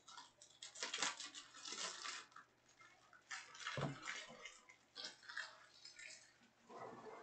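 Trading cards being handled: a run of clicks, slides and rustles, with one dull knock about four seconds in.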